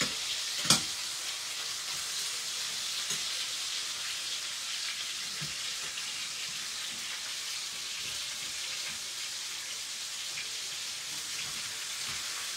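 Chicken pieces frying in oil in a stainless steel pan: a steady sizzle, with one sharp metallic clink a little under a second in as the fork knocks the pan, and a few faint ticks later.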